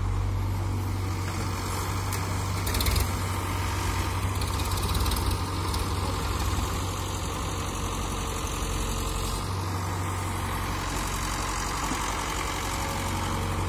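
Diesel engines running steadily: a Hitachi tracked excavator working close by, with a Sonalika tractor idling at its trolley. A brief clatter about three seconds in.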